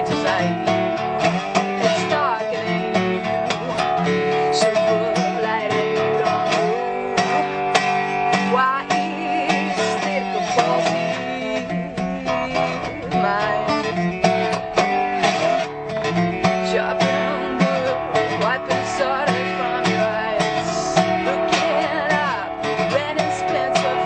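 Gretsch resonator guitar playing an instrumental passage of a song, with a dense run of picked notes.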